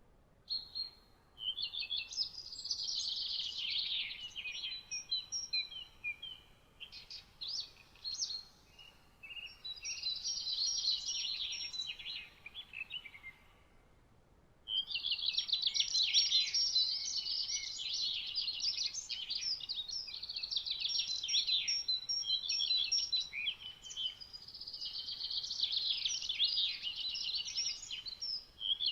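Songbirds singing: long, rapid phrases of chirps and trills. The song pauses for about two seconds just before the middle, then runs almost without a break.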